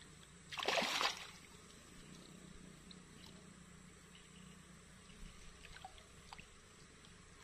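A short splash of water at the canal edge about half a second in, then a quiet stretch with only a few faint ticks.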